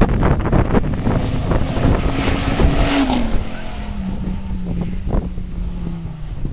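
Rally car passing at speed on a wet tarmac road: its engine note grows, tyres hiss through the water as it goes by about three seconds in, then the engine drops in pitch as it draws away. Wind buffets the microphone.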